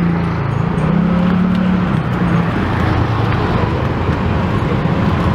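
Steady street traffic noise, with a nearby motor vehicle engine running at a low, slightly wavering pitch.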